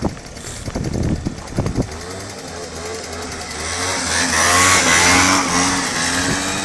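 Moped scooter engine held at high revs in a burnout on ice, its rear wheel spinning. After a couple of seconds of uneven rumbling the engine settles into a steady high note, and a loud hiss of the spinning tyre peaks about four to five seconds in.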